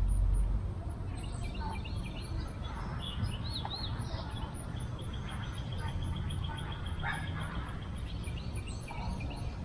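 Wild birds singing: short chirping phrases, with a rapid, even trill in the middle, over a low steady rumble of wind.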